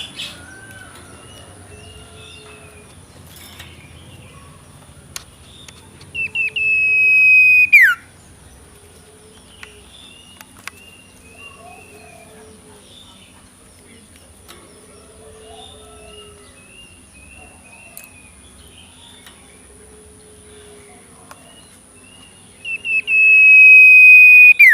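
A two-month-old owlet giving two long, high whistled calls, each held on one pitch and then dropping sharply at the end, with a couple of short stuttering starts before each; faint soft chirps repeat in between.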